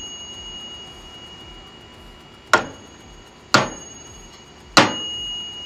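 Small metal bell struck three times, a second or so apart. Each strike is a sharp ding that rings on with a steady, clear tone.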